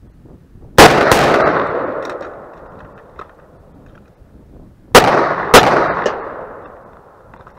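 Two AR-15 rifle shots fired in quick succession about a second in, then a faint click, then two 1911 pistol shots about half a second apart near five seconds in, each pair trailing a long echo: a rifle-to-pistol transition drill.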